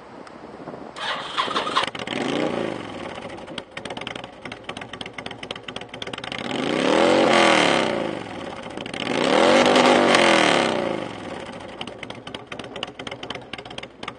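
2007 Honda VTX1300 V-twin with straight-cut Vance & Hines exhaust pipes starting up: the starter cranks briefly about a second in and the engine catches. It is then revved twice, each rev rising and falling over about two seconds, and settles back to idle.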